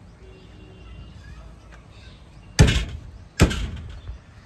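Butcher chopping mutton into small pieces with a cleaver: two heavy chops a little under a second apart, past the middle.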